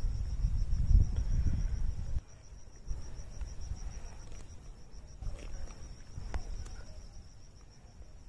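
Crickets chirring in a steady, high, pulsing trill. Low rumbling on the microphone fills the first two seconds, and a few faint clicks come later.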